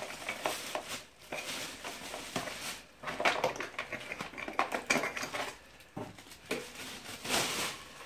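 Plastic packaging rustling and crinkling, with irregular light knocks and clatter as an electric heater's parts are lifted out of their cardboard box.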